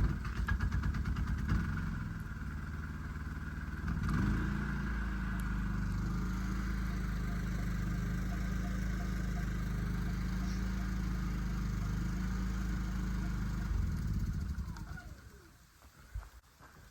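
A small engine starts up and runs steadily, changing note about four seconds in, then shuts off and winds down near the end.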